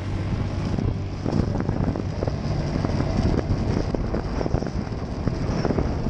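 Enduro motorcycle engine running as the bike rides over a rutted dirt track, with many short knocks from the rough ground and wind buffeting the helmet-mounted microphone.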